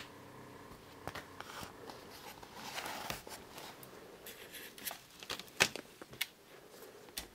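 Close handling noise: rustling and scuffing with scattered sharp clicks and knocks as equipment is handled against wooden boards, the loudest knock about five and a half seconds in.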